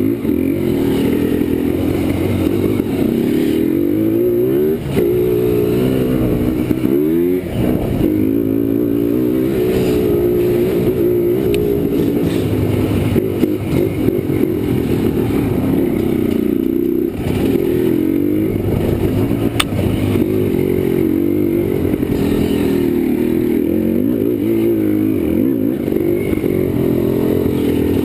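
Yamaha Blaster quad's single-cylinder two-stroke engine revving up and down over and over as it is ridden along a dirt trail, with a few short knocks and rattles from the machine over the bumps.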